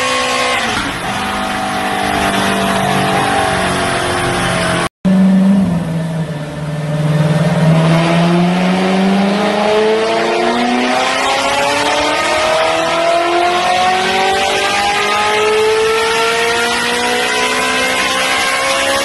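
Ferrari F430 Scuderia's V8 running through an Fi Exhaust valvetronic exhaust on a chassis dyno. It holds fairly steady revs at first, cuts out briefly about five seconds in, then pulls in one long, steady rise in pitch as the revs climb under dyno load.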